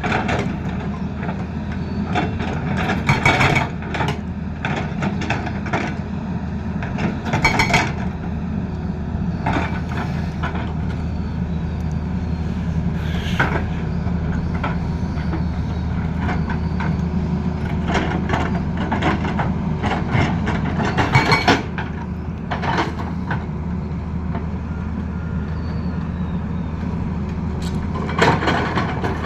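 Excavator diesel engine running steadily, with several short bursts of hard metallic knocks and clanks.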